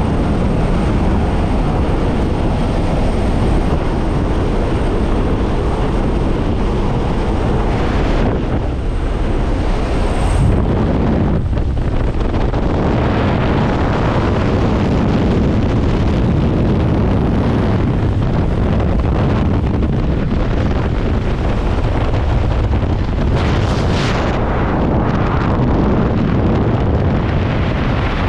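Loud, steady wind and engine noise from a skydiving jump plane: the roar of the cabin, then rushing air at the open door as the jumper holds the wing strut, and wind over the microphone in freefall near the end.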